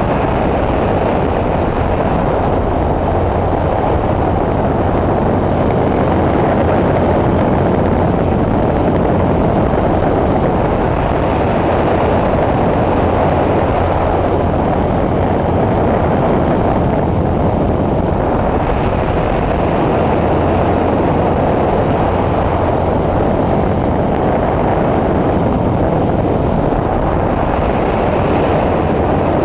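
Pitts S1S aerobatic biplane in flight: its engine and propeller running steadily at power, mixed with heavy wind rush on the wing-mounted microphone.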